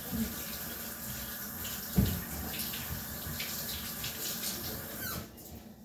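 Kitchen tap running steadily, then shut off abruptly about five seconds in. There is a single knock about two seconds in.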